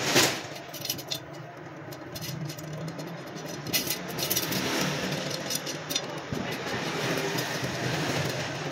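Small metallic clicks and clinks of steel spokes and brass spoke nipples being handled against a chrome motorcycle wheel rim, with one sharp click just after the start, over a steady background rumble like engine or traffic noise.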